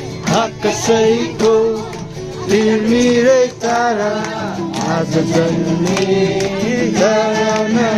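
Voices singing a Nepali Christmas carol, holding long wavering notes over an instrumental accompaniment with a regular plucked beat.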